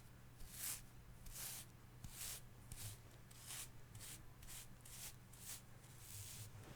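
Hair brush stroking through hair: a faint series of short bristly swishes, about one a second, coming quicker (around two a second) in the middle.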